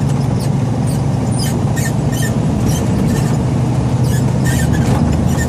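Semi-truck's engine and road noise droning steadily inside the cab, with many short high squeaks and creaks from the cab as it rides over rough pavement.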